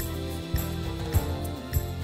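Background music: an Indonesian pop song's instrumental accompaniment with a steady beat, in a gap between the sung lines.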